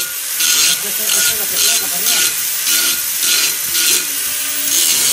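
Angle grinder cutting through steel, throwing sparks: a harsh, loud hiss with a high motor whine, swelling about twice a second as the wheel bites into the metal.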